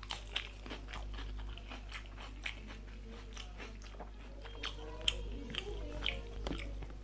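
A person chewing and biting food close to the microphone, with many quick, irregular mouth clicks and smacks and some crunching.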